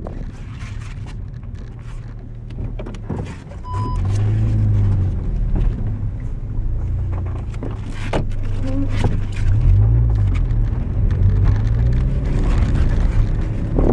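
Skoda Fabia VRS engine and road noise heard from inside the cabin while it is driven hard on a hill slalom course. A low engine drone rises and falls with the revs twice, about four and ten seconds in, over wind and tyre noise with occasional knocks.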